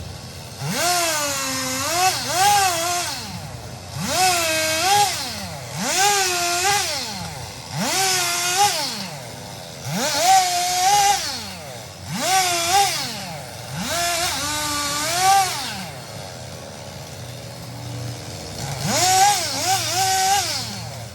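Chainsaw revved up to full speed and let back down about every two seconds, eight times in a row, then after a short pause once more near the end, as in a run of cuts.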